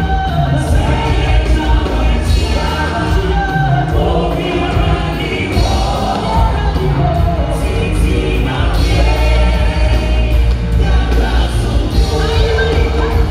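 Live gospel music: a group of singers singing with a full band, loud and continuous, with a strong steady bass under the voices, amplified through the hall's sound system.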